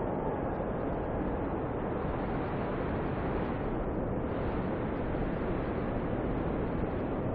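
Snowstorm wind blowing steadily: a dense, even rush of noise with no distinct gusts or other events.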